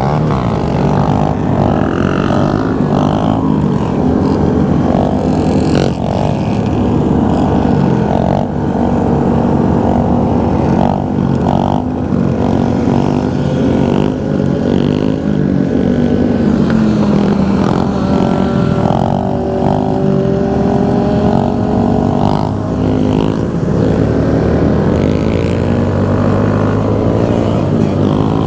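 Motorcycle engines running continuously at riding speed. Their pitch rises and falls as the throttle changes.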